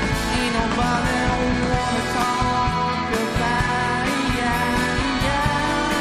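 Live indie rock band playing: electric guitars, drums and keyboard, with a voice singing.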